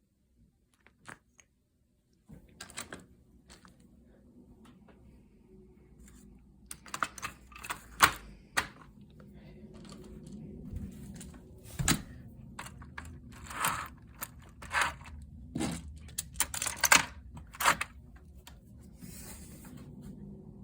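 A boxed model subway train and its packaging being handled: irregular clicks, knocks and short rustles of cardboard and plastic, over a low steady hum that starts about two seconds in.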